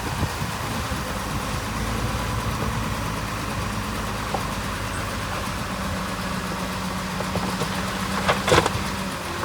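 Diesel engine of heavy earthmoving machinery running steadily, with two short sharp knocks near the end.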